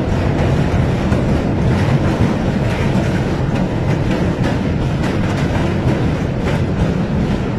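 Passenger train running across a steel truss railway bridge, heard from beside the coach: a loud, steady rumble of wheels on rail with a few faint, irregular clicks.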